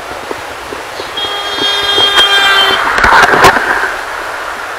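A passing vehicle sounds its horn, one steady blast of about a second and a half, then drives past with a loud rush of engine and tyre noise that fades away.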